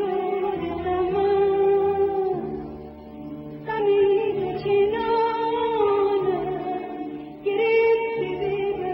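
Music: a slow Persian melody of long held notes with vibrato over a low, steady accompaniment, in phrases with short breaks between them, leading into a sung verse.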